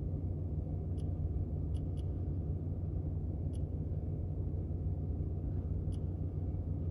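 About five faint, sharp clicks of buttons being pressed on the CNC's controller while a value is keyed in, over a steady low hum.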